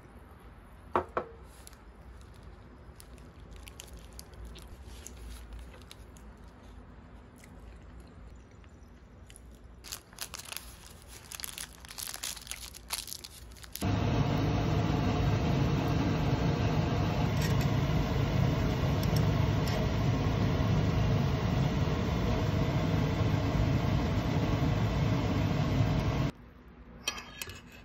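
Ramyeon soup boiling in a small pot on an induction hob: a loud, steady bubbling noise that cuts off suddenly near the end. Before it, a few seconds of a paper sandwich wrapper crinkling.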